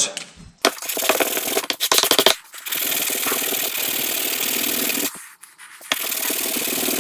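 Steady rubbing, sanding-like scraping in three spells of about two to three seconds each, as the edges of a homemade card gasket for an air compressor head are trimmed and finished.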